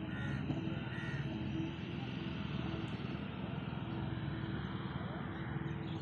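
Crows cawing, two short calls within the first second and a half, over steady outdoor background noise with a low hum.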